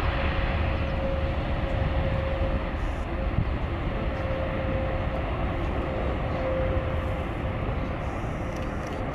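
Boeing 747's four jet engines at takeoff power during the takeoff roll: a steady jet roar with a steady whine running through it.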